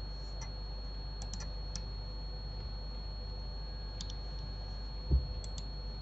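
Scattered clicks of a computer mouse and keyboard, a few single clicks and quick pairs, over a steady low electrical hum, with one dull thump about five seconds in.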